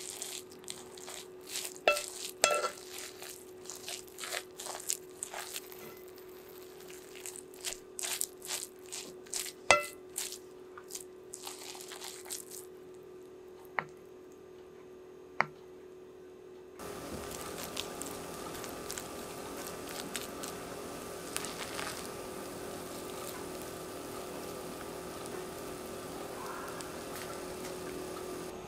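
A wooden rice paddle stirring and scooping cooked rice and gondre greens in a black pot, making a run of soft scrapes and knocks against the pot. This thins to a couple of lone knocks, and for the last third there is only a steady faint hiss.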